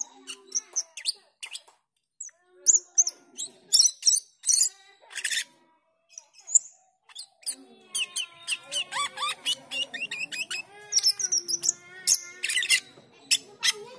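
Asian glossy starling calling: sharp, high whistled chirps and short calls with pauses between them. About eight seconds in, these give way to a fast, continuous chattering warble.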